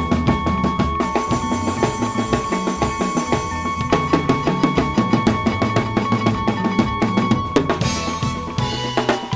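Drum kit played in a fast, busy seben groove: quick bass drum and snare strokes under cymbals, with a cymbal crash about eight seconds in.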